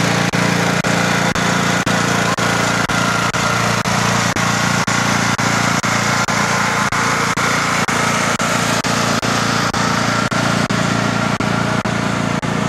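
Riding lawn mower engine running steadily under way.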